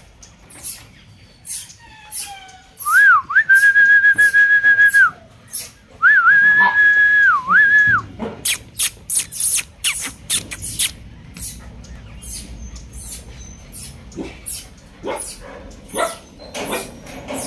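A person whistling two long, steady notes, each with a short dip in pitch at its start and end. From about eight seconds in, a string of sharp clicks and rattles follows.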